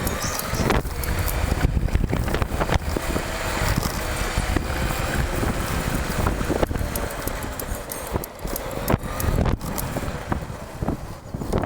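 Wind buffeting the microphone over road and tyre rumble while riding an electric scooter, with a faint whine that drifts up and down in pitch.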